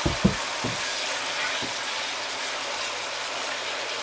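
Tomato and yogurt masala frying and sizzling steadily in a nonstick wok, with a few soft knocks of a silicone spatula against the pan in the first two seconds as it is stirred.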